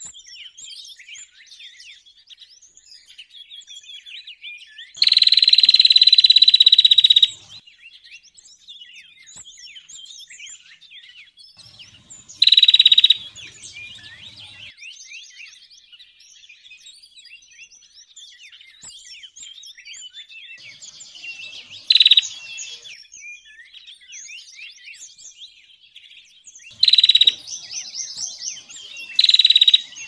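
Small forest songbirds calling together, among them bar-winged prinias (ciblek): a continuous busy chatter of quick high chirps and twitters. Five times a loud, harsh call held at one high pitch breaks in; the longest lasts about two seconds.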